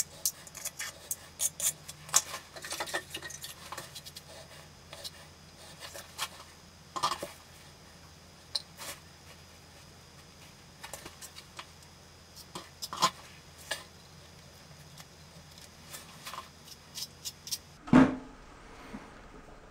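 Small mosaic floor tiles clicking and scraping as they are nudged into line by hand and with a small pointed tool, in irregular light taps. One louder thump comes near the end.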